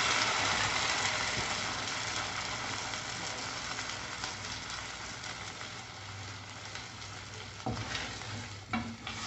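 Tomato sauce sizzling as it is poured onto hot sautéed onion, garlic and bell pepper in a saucepan. The sizzle fades steadily as the sauce cools the pan. Near the end a few short knocks and scrapes come from a spoon stirring it in.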